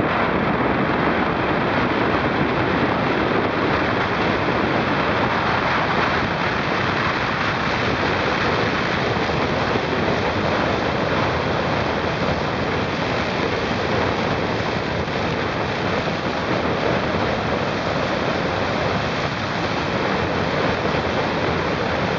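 Steady rushing noise of a vehicle driving at speed: wind and road noise on the microphone, with a faint steady high whine.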